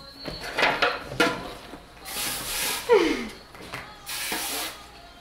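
Aerosol cooking-spray can hissing in two short bursts, about two seconds in and again about four seconds in, as it is sprayed into a foil loaf pan. A short falling sound comes between the bursts, about three seconds in.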